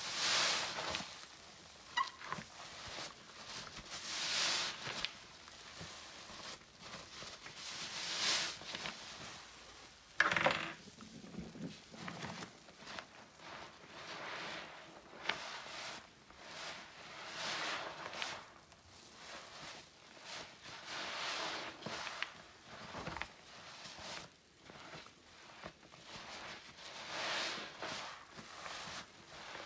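A sponge soaked in floor cleaner being squeezed over and over, a wet, fizzy squelching swell every few seconds, with a sharper crackle about ten seconds in.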